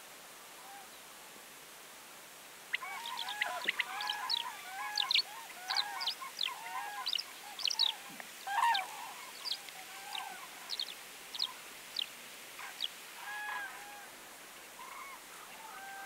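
A group of common cranes calling: a sudden burst of many short trumpeting calls about three seconds in, mixed with sharp higher notes, thinning out to scattered calls toward the end.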